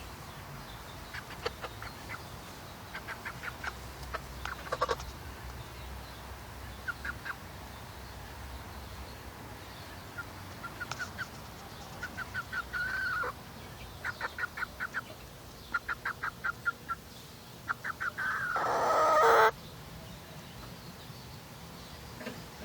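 A young hen, about three and a half months old, clucking in repeated short runs of quick clucks, the noise of a hen gone broody. About three-quarters of the way through comes one louder, drawn-out call.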